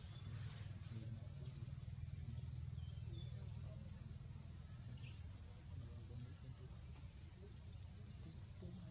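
Steady high-pitched drone of an insect chorus, wavering slightly, over a low steady rumble.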